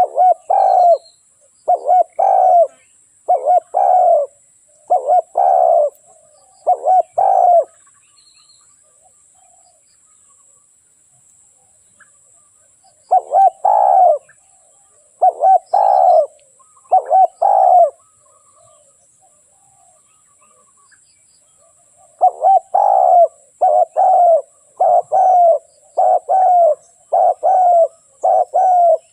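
Spotted dove cooing: runs of short, repeated coos in three bouts, separated by pauses of about four to five seconds.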